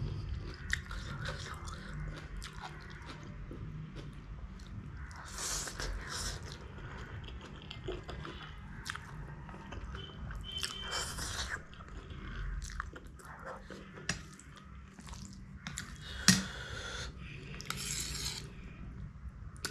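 Close-miked eating: chewing with small wet clicks, and a few longer slurps of spicy noodles. A single sharp click sounds about 16 seconds in.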